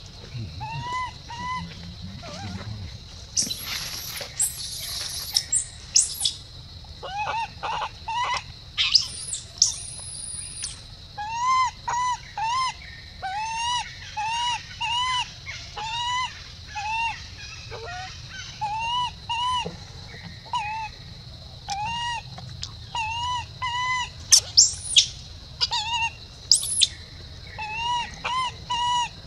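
Infant long-tailed macaque crying: a long run of short calls, each arching up and down around one pitch, about one a second. Louder shrill shrieks break in a few seconds in and again near the end, over a steady high hum.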